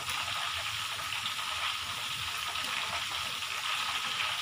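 Hot oil in a wok sizzling steadily around small pieces of half-cooked tofu deep-frying for crispy tofu, as the pieces are stirred continuously so they puff up.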